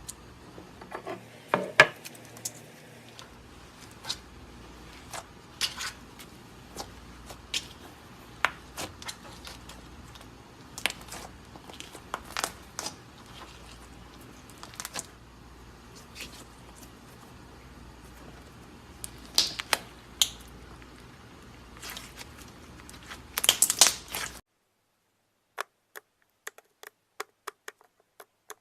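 Slime being squeezed and poked by hand, making irregular sticky clicks and pops, with a quick run of pops near the end.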